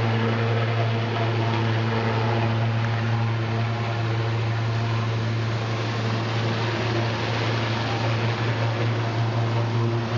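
Helicopter running steadily on the ground: a constant low drone with a rushing noise over it, unchanging throughout.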